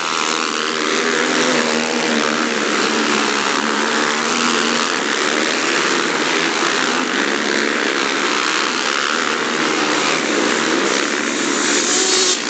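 A pack of racing quads (ATVs) revving hard together as they race past on a dirt track, many engines overlapping in a loud, continuous sound.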